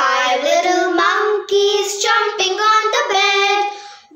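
A child singing.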